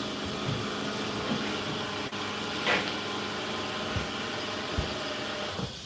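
Whirlpool WFO3P33DLXUK dishwasher running its 65 °C full wash: a steady, even wash noise of water being sprayed and circulated, with a few faint knocks.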